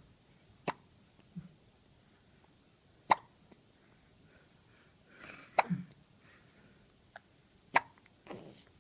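Newborn baby hiccupping: four short, sharp hiccups about two to two and a half seconds apart.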